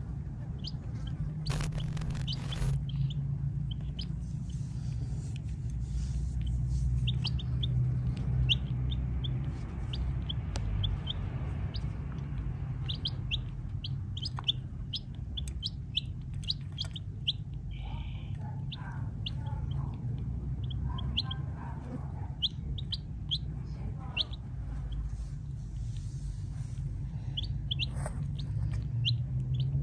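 Baby chicks peeping: short, high peeps scattered through, growing more frequent past the middle, over a steady low rumble.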